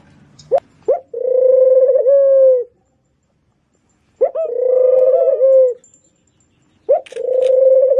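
Pigeon cooing: three drawn-out, steady coos of about a second and a half each, each opened by a short rising note, with pauses between them.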